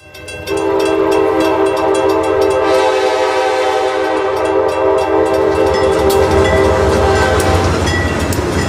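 Diesel locomotive's air horn blowing one long steady blast for a grade crossing, over the low rumble of the engine and the regular clang of the crossing bell. The horn stops near the end, leaving the engine rumble and the noise of the train on the rails.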